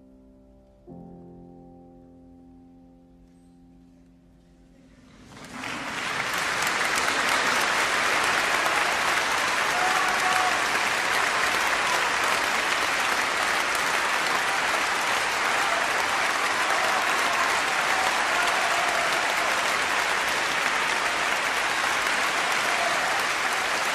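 Grand piano playing the quiet closing chord of a piece, struck about a second in and left to fade. About five seconds in, a concert audience breaks into loud, sustained applause.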